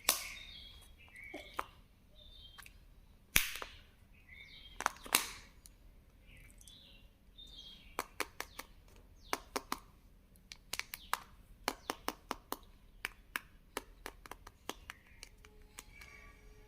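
Handling of a Kinder Joy egg and its toy: a few loud plastic snaps and crinkles in the first five seconds, then many quick small plastic clicks.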